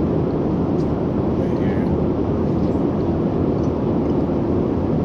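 Airliner cabin noise at cruise: a steady, even rumble of the jet engines and airflow, heavy in the low end.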